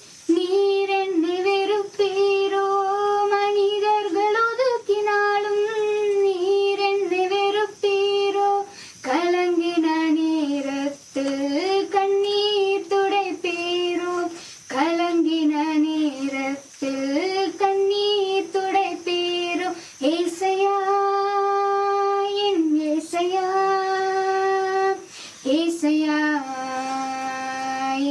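A young woman singing a slow melody alone and unaccompanied, holding long notes in phrases separated by short breaths.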